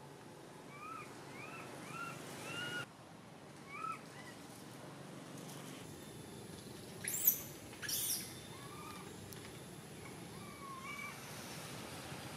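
Baby long-tailed macaque crying: a quick run of four short, arched, squeaky calls near the start, then single calls spread through the rest. Two brief, louder, shrill sounds come a little past the middle.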